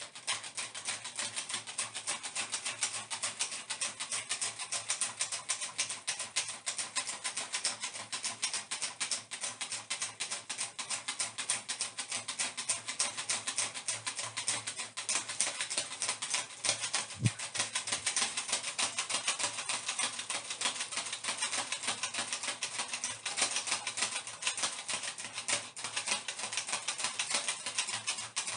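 A hand fan being waved rapidly, a continuous fast fluttering rattle.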